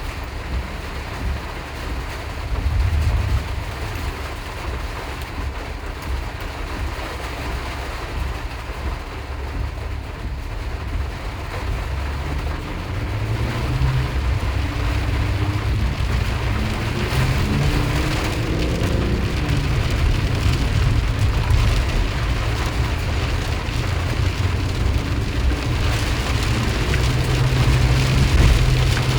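2020 RAM Promaster van driving in heavy rain: rain hitting the van over a low road and engine rumble. About halfway through the engine note rises and falls as the van speeds up, and the rumble and rain stay louder after that.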